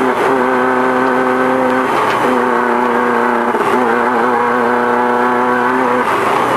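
Off-road desert race car's engine running hard at a steady pitch, heard from inside the car, over a haze of road and wind noise. The note breaks off briefly about two seconds in and again near the end, with a short wobble in pitch in between.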